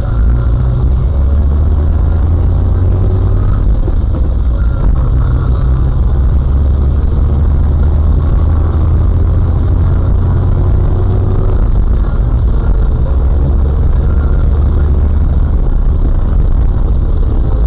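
Steady low rumble of a car's engine and road noise while driving.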